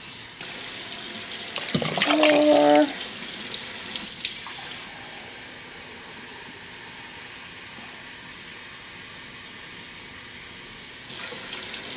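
Water being poured into a pot of hot soup, a steady running and splashing that is louder for the first few seconds, then goes on more softly and picks up again near the end. A short steady tone sounds about two seconds in.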